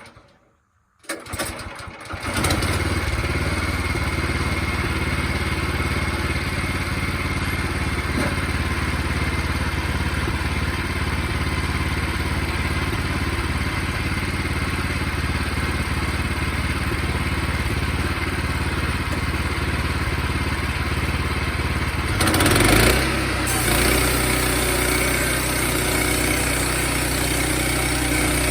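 Sawmill's gas engine starting up about two seconds in, then running steadily. Near the end it briefly gets louder and its note changes.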